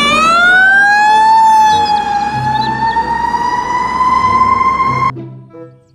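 Fire engine siren wailing, its pitch rising slowly and unevenly, then cutting off suddenly about five seconds in.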